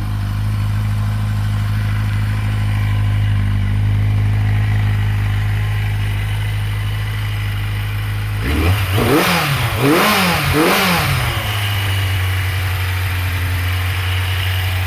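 1981 Yamaha 750 Seca's four-cylinder engine idling steadily on its freshly rebuilt carburettors, blipped up a few times about eight seconds in before settling back to idle. It sounds healthy, though the idle is set a little high.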